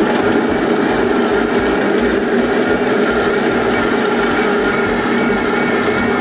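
Cobbo 7 kitchen robot's motor running steadily at speed 5, its blade chopping quartered dates into a warm cocoa-butter glaze in the bowl.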